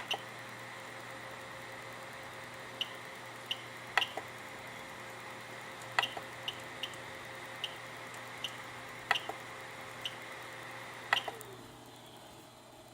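Stepper motor run by a TMC2100 stepstick driver in its quiet stealthChop mode, giving a faint steady whine with a low hum beneath. A dozen or so sharp clicks come at irregular intervals. About eleven seconds in, a tone glides downward and the whine fades as the motor slows and stops.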